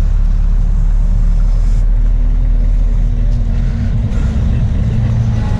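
Motor vehicles running close by on a road, a loud low drone, with a steady engine hum coming in about two seconds in.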